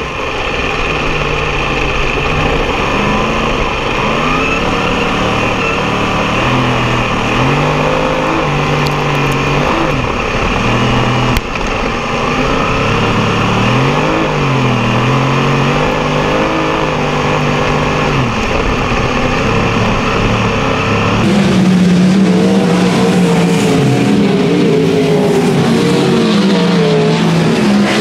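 Sprint car's V8 engine heard from an onboard camera, revving up and easing off in repeated swells as the car laps a dirt oval. About 21 seconds in the sound cuts to a different, higher engine note.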